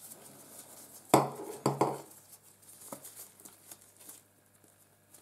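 Sharp knocks and clinks of things set down and handled on a hard chopping board while gloved hands tie up crab cart wrapped in finger bandage. The loudest pair comes a little over a second in, followed by fainter ticks and rustles.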